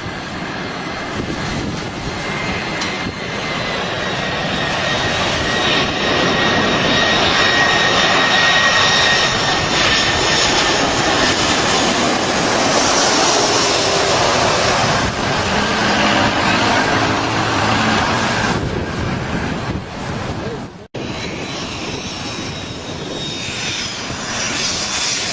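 Jet airliner engines at close range: a loud rushing roar with a thin high whine over it, swelling to a peak about eight seconds in and then easing. The sound breaks off for an instant about 21 seconds in and picks up again.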